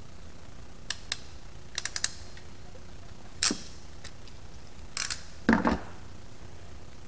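Hand wire strippers clicking and snipping at engine wiring: a few sharp clicks in the first two seconds, a short scrape about three and a half seconds in, then a louder metal clatter about five and a half seconds in as the tool is set down on the bench.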